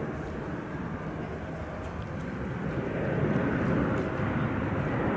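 Jet engine noise from an Airbus A350-900's Rolls-Royce Trent XWB engines as the airliner touches down and rolls out, a steady rush that grows louder about three seconds in.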